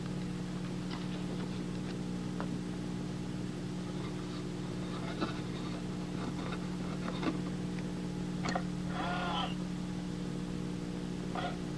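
Steady low electrical hum with faint scattered clicks. About nine seconds in, a brief wavering higher-pitched sound rises over it for about a second.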